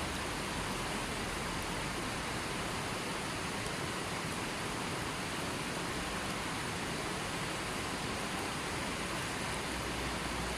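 River water flowing and rushing, a steady even wash of noise with no changes.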